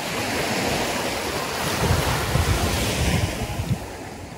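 Small waves washing in over sand in shallow water, swelling and then fading, with wind rumbling on the microphone.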